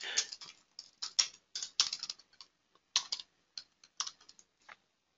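Typing on a computer keyboard: a run of irregular keystrokes with short pauses between bursts.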